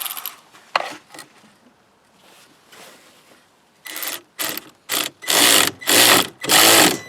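Socket wrench and metal hardware worked on a truck battery's positive terminal: a few light clicks early, then from about four seconds in a run of loud, rough strokes, each about half a second long.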